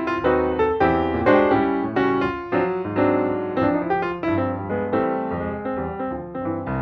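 Piano music: a steady run of struck notes over sustained low chords.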